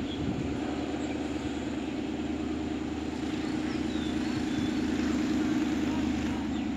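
An engine idling with a steady, even hum, while small birds chirp now and then.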